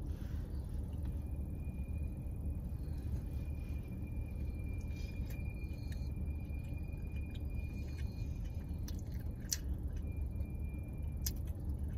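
Steady low rumble inside a parked car's cabin, typical of the engine idling, with a faint thin high whine over it and a few soft ticks.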